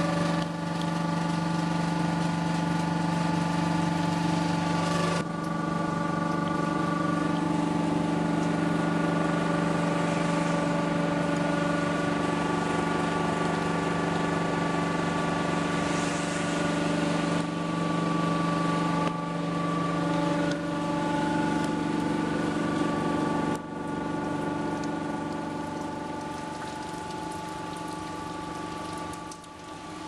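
Steady machine hum with several fixed pitches held unchanged throughout, like a motor or compressor running, with slight shifts in level about five seconds in and near twenty-three seconds.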